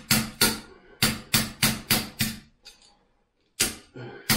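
A hand tool knocking against the porcelain toilet tank and its bolt fittings: a run of sharp knocks about three a second, with a pause of about a second after the middle.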